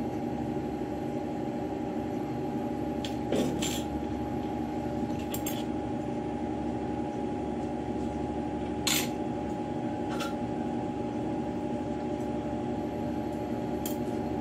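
Steady droning hum with several fixed tones, from the equipment at a lampworking torch bench, with about five light clicks and clinks of glass rods and stringers being handled. The loudest clink comes about nine seconds in.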